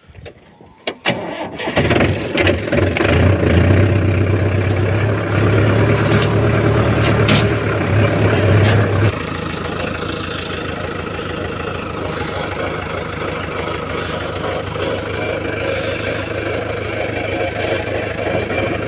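Sonalika tractor's diesel engine starting after a few clicks about a second and a half in, then running loudly. About nine seconds in it gives way abruptly to a JCB backhoe loader's diesel engine idling steadily.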